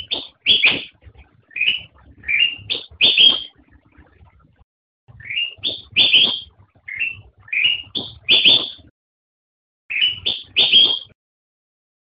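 Bulbul (Pycnonotus melanicterus) singing: short phrases of quick, rising whistled notes, three to five notes a phrase, repeated with pauses of about a second or two between phrases.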